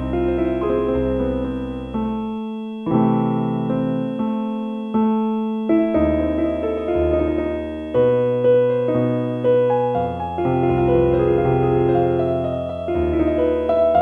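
Slow, relaxing solo piano music, chords and notes struck about once a second. A faint steady high tone is held underneath.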